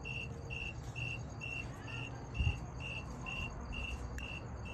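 A cricket chirping steadily, about two short chirps a second, all at one pitch, over a low steady hum. A soft low thump comes about two and a half seconds in.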